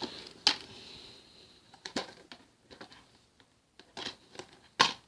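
Plastic DVD case being handled and opened: a few separate sharp clicks and snaps, the loudest near the end.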